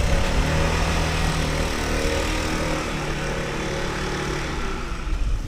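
An engine running with a steady hum, its pitch dropping slightly about three seconds in.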